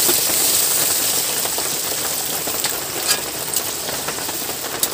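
Water poured into a hot karahi of potatoes frying in oil and spices, sizzling and gradually dying down, with a few clicks of a metal spatula stirring against the pan.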